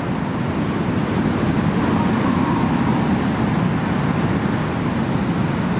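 Heavy rain and strong wind: a loud, steady rushing noise with no breaks.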